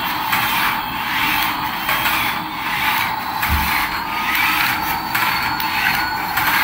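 Radio-control toy Airbus A380 airliner driving across a tiled floor: a steady, gritty whir from its small electric motor and plastic gears, swelling and dipping about once a second.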